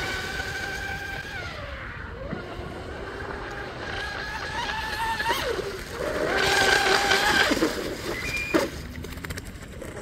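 Electric whine of an RC F1 tunnel powerboat's 3674 1650kV brushless motor and propeller running on 6S: the pitch drops, climbs again and holds high as the throttle changes. The whine fades away about two seconds before the end, with a brief high tone as the motor jams, which the owner thinks may be worn bearings or something binding.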